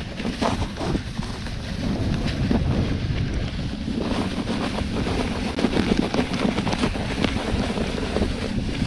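Wind buffeting the microphone of a moving camera: a steady low rumble with irregular crackles over it.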